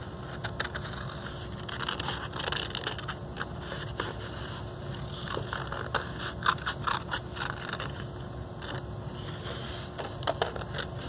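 Scissors cutting through cardstock: a string of irregular snips and paper rustling.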